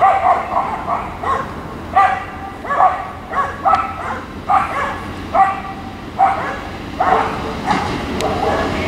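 A dog barking over and over, short sharp barks coming about one or two a second.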